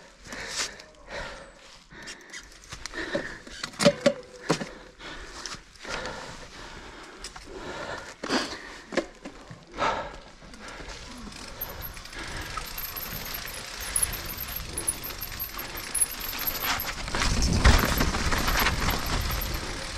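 Mountain bike riding down a rough trail: irregular knocks and clattering of the bike over bumps, then a steadier rush of wind and tyre noise that grows louder and heavier near the end.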